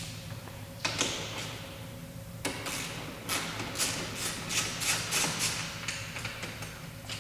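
Short sharp clicks of a hand ratchet working the screws along the top of a car's front bumper: a single click about a second in, then a run of clicks, two or three a second, from about two and a half to five and a half seconds in.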